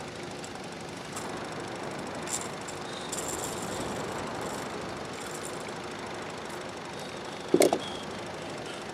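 Evinrude outboard motor running steadily at low trolling speed. A single sharp knock stands out about seven and a half seconds in.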